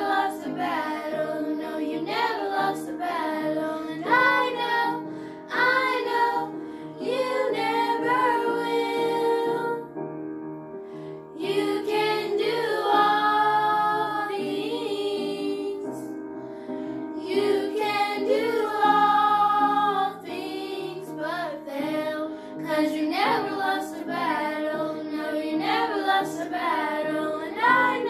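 Young girls singing a worship song together over an instrumental backing track, the voices pausing briefly twice while the accompaniment carries on.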